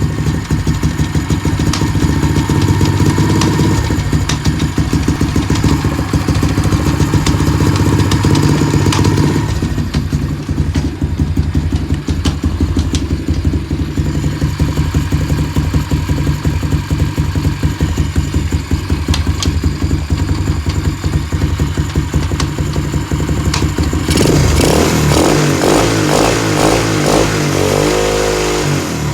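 Apollo motorbike's small engine running, with sharp clicks every few seconds from the drive sprocket and chain, at which the sprocket tries to move; the owner does not know the cause, and the chain sometimes locks up when riding. The engine sound changes over the last few seconds.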